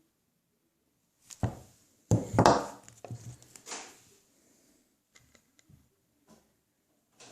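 A handful of sharp knocks and clattering handling noises in a small room, the loudest cluster about two seconds in, followed by a few faint clicks.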